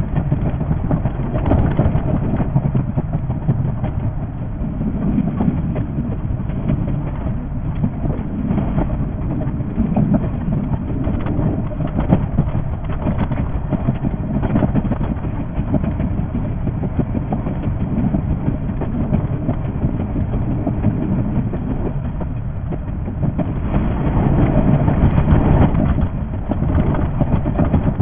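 Running noise of a JR 381 series electric train heard from the driver's cab: a steady rumble packed with rapid clicks from the wheels and track, sped up to six times normal speed. It grows louder for a couple of seconds near the end.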